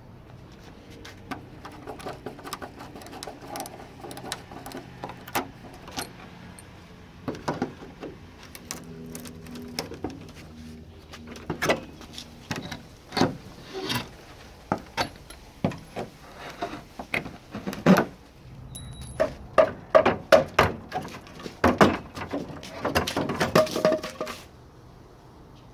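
Hand carpentry work on a wooden gate: irregular knocks, taps and metallic clinks of tools and nails against wood, growing louder and more frequent partway through, with a short rapid scraping-rattling burst near the end.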